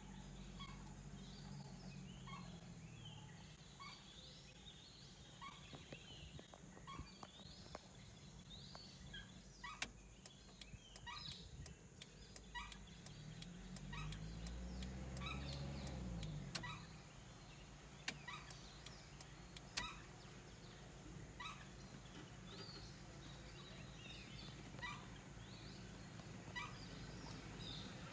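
Faint outdoor ambience with a bird call repeated about once a second. Scattered sharp clicks fall through the middle, and a low rumble swells and fades around halfway through.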